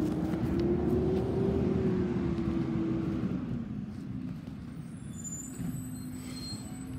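Garbage truck running, a steady drone that rises a little and then eases off over the first three seconds, followed by a lower, quieter hum.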